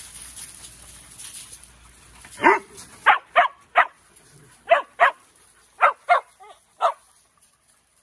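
Dog barking about ten times in short, sharp barks, starting a couple of seconds in and coming in quick pairs and threes before stopping near the end.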